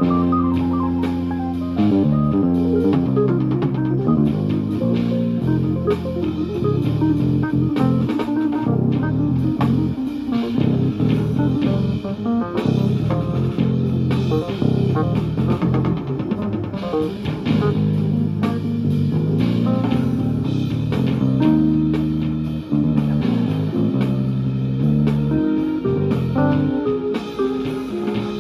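Keyboard music from a Roland GO:KEYS, with sustained chords over a bass line and a steady drum beat.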